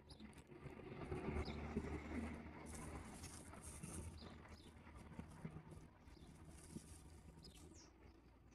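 Faint outdoor ambience: a steady low rumble of wind or distant traffic, with a few short, high bird chirps scattered through it.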